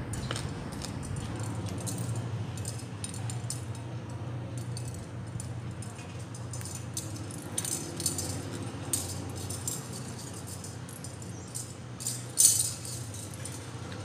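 Shell wind chime clinking and clattering irregularly in the breeze, a scatter of light jangles with a louder clatter about twelve seconds in.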